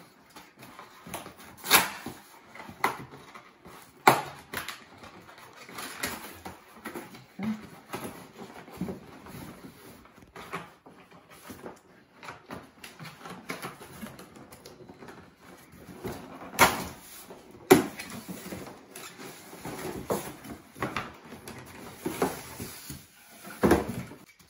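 Cardboard box being opened by hand: tape strips pulled off and cardboard flaps scraping and folding open, a stream of rustles with several sharp snaps and knocks.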